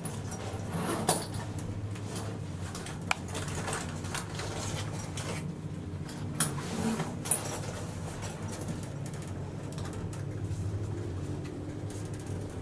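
1961 Schindler elevator running: a steady low hum with a few sharp clicks, one about a second in, one about three seconds in and two more in the middle.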